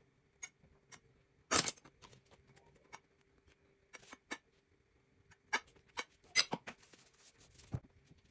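Metal table knife spreading mayonnaise over split bread rolls in a glass baking dish: scattered short scrapes and clicks of the blade on the bread and dish, loudest about one and a half and six and a half seconds in, with a low thump near the end.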